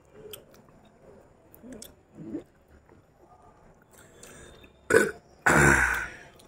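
A man burps loudly near the end, a rough belch lasting more than half a second, just after a brief short sound. Before that there are only faint mouth sounds as he sucks and eats a ripe mango by hand.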